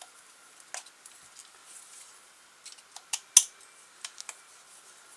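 Light clicks and taps of a hex key and small parts being handled while the cover of an RC crawler's chassis is unscrewed and taken off. They come irregularly: one, then a quick cluster with the sharpest tap about three and a half seconds in, then a few more.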